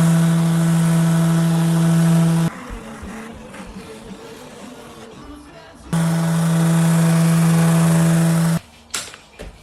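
A handheld power tool's motor running at steady speed in two bursts of about two and a half seconds each, starting and stopping abruptly, with quieter scraping and handling between them and a couple of knocks near the end.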